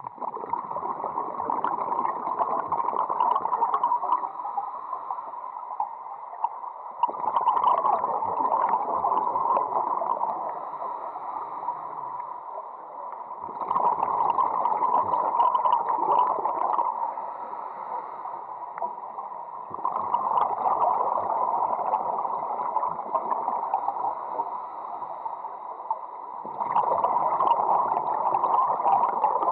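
Scuba diver's exhaled bubbles from a regulator, heard underwater as a burst of bubbling every six to seven seconds, five times, each lasting about four seconds with quieter breaks between.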